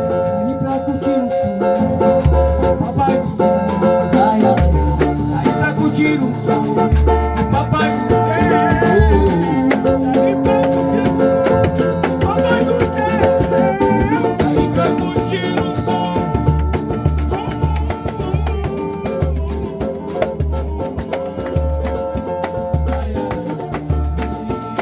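Samba music with a regular drum beat and a rattling shaker.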